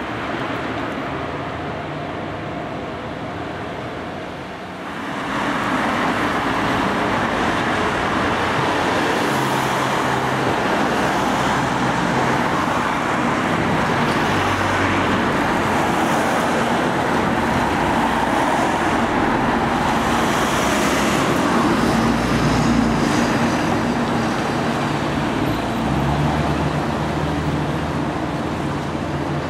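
Road traffic with a city bus engine driving past close by. The noise rises about five seconds in and then stays steady and loud.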